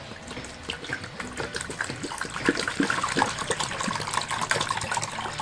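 Water pouring in a stream from a glass bottle into a plastic basin partly filled with water, splashing steadily.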